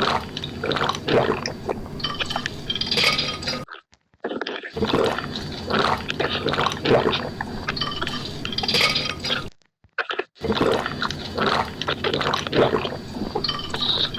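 Close-up wet mouth sounds of drinking plain water: slurping, gulping and gurgling with many small clicks. The sound stops abruptly twice, about four and ten seconds in.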